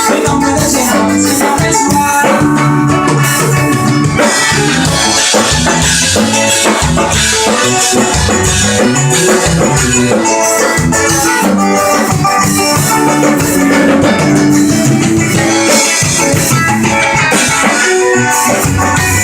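A band playing an instrumental passage, with electric bass, drum kit and guitar.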